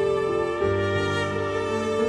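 Slow background music of held notes in chords, the chord changing about half a second in and again just before the end.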